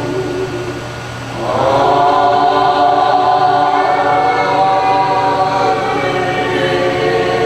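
A group of voices singing long held notes together, swelling louder about a second and a half in.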